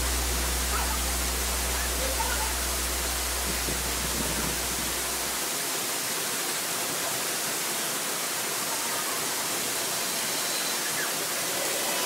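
Waterfall pouring into a rocky plunge pool: a steady rushing hiss. Low background music bass fades out about five seconds in.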